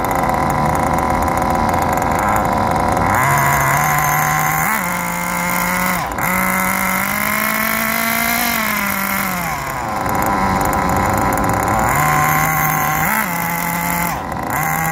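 Small nitro glow engine of a Kyosho Inferno Neo 2.0 RC buggy running at a steady idle, with throttle blips: a short one about five seconds in, a longer rev that rises and falls over about three seconds soon after, and another short blip near the end.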